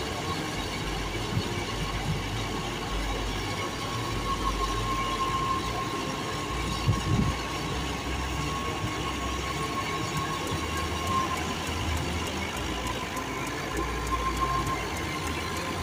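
Fiat 640 tractor's diesel engine running steadily under load while belt-driving a wheat thresher, together with the thresher's drum churning through the straw. A thin steady whine runs through the machine noise.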